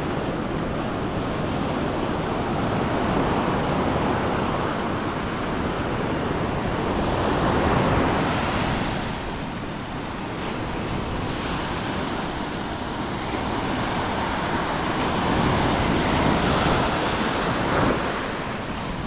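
Ocean surf breaking and washing up a sandy beach, a steady rush that swells louder with the larger waves.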